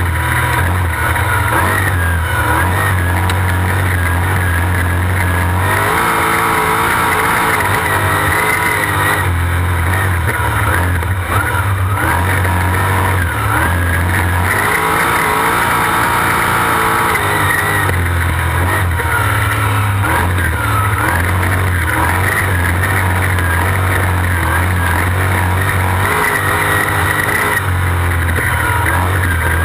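V8 sprint car engine heard from inside the cockpit as the car laps a dirt oval, loud throughout. The engine note rises and falls with the throttle in a cycle that repeats every several seconds, lap after lap.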